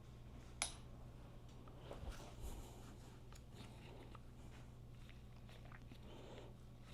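Small clicks and knocks of hand tools and parts being handled during motorcycle repair work: one sharp click about half a second in and a couple of duller knocks around two seconds in, over a steady low hum.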